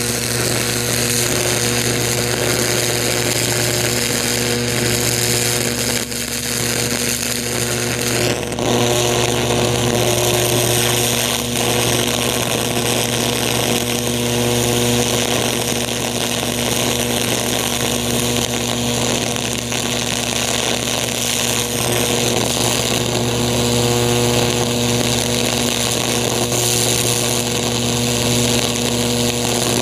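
High-voltage electric arc burning into a pumpkin's skin from a probe tip: a loud, steady crackling buzz with an electrical hum underneath, briefly faltering about eight seconds in.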